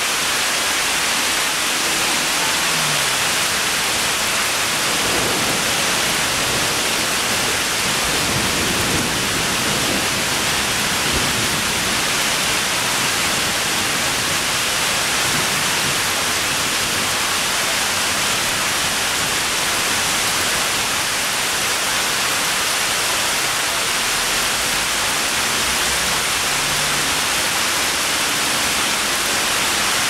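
Heavy rain pouring down, a dense, even, unchanging hiss.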